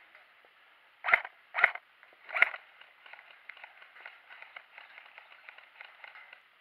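Three loud, sharp knocks about a second in, over a faint, quick patter of small clicks.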